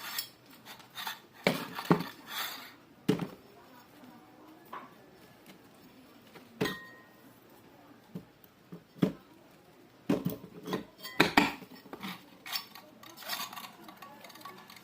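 Irregular metallic clinks, knocks and taps of tools and small metal fan parts being handled and set down, with one brief ringing clink about halfway through.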